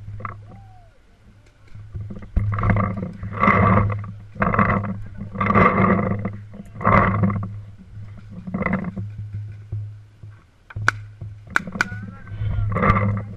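Footsteps crunching through dry leaf litter while walking, a step about once a second. A few sharp clicks come near the end.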